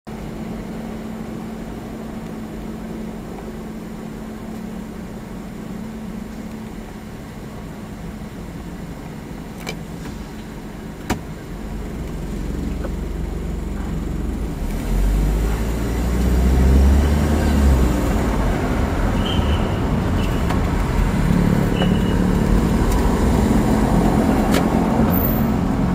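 Toyota HiAce van heard from inside the cabin, its engine idling with a steady low hum. After a single sharp click, the van moves off about halfway through, and the engine and road rumble grow louder as it accelerates, loudest a few seconds later.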